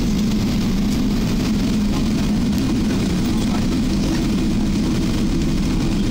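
Steady, even roar inside the cabin of an Airbus A380 rolling on the runway after touchdown: engine and airflow noise heard through the fuselage.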